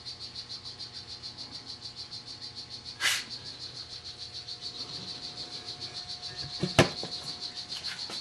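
Cricket chirping steadily, a high-pitched trill at about five pulses a second. A brief swish about three seconds in and a sharp knock near the end.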